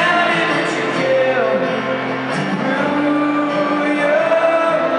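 Live band music: a man singing long, held notes over guitar.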